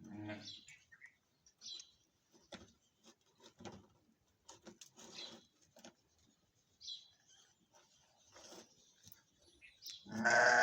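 Scattered soft clicks and smacking sounds of a lamb sucking milk from a feeding bottle, with a few brief bird chirps. A louder vocal sound comes near the end.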